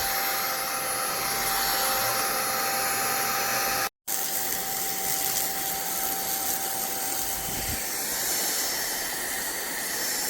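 BuTure VAC cordless stick vacuum running: a steady motor whine over rushing air. The sound cuts out for an instant about four seconds in, then carries on unchanged.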